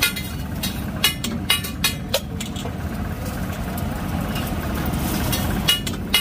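Sharp metallic clinks of a metal spatula striking a flat griddle, several in the first two seconds and two more near the end, over a steady low traffic rumble.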